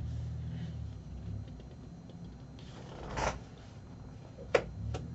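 Laminated magazine pages being handled: a low rumble in the first second or so, a short rustle of the pages about three seconds in, and two light clicks near the end.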